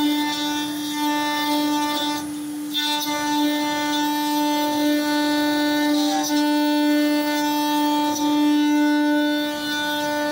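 CNC milling machine cutting metal: a steady whining tone with many overtones that holds one pitch, briefly breaking off about two seconds in and again near six seconds.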